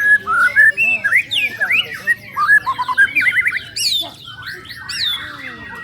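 White-rumped shamas (murai batu) singing, several birds overlapping: a dense stream of varied whistles, quick trills and sharp down-slurred high notes.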